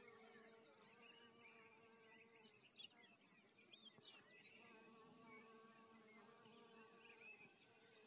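Faint buzzing of bees working flowers, a steady hum that fades out about three seconds in and comes back a second and a half later.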